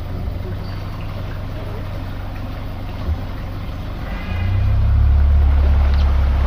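Tour boat's outboard motor running, a steady low rumble that grows louder about four seconds in.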